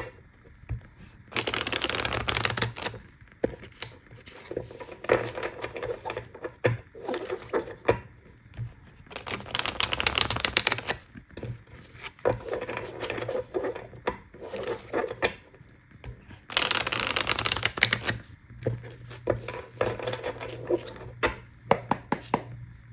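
Tarot cards being shuffled by hand. Three bursts of fast, dense card rattling a couple of seconds each, with scattered card clicks and slides between them.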